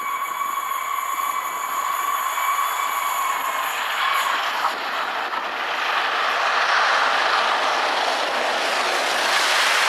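LNER A1 Peppercorn Pacific steam locomotive 60163 Tornado approaching at speed with its train, a rushing noise of exhaust and wheels on rail that swells as it draws near. A steady high tone sounds for the first four or five seconds and then stops.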